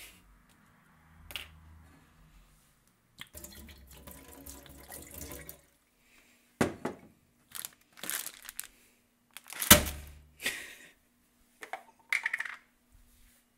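Water running from a tap into a stainless steel sink for a couple of seconds, then a string of sharp clatters and splashes in the sink as a frying pan is handled, the loudest a heavy knock just past the middle.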